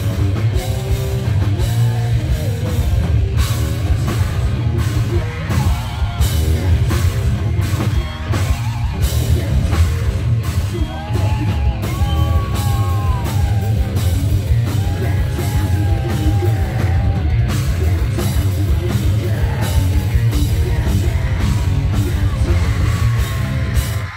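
Metal band playing live: distorted electric guitar, bass guitar and drum kit at a loud, steady level.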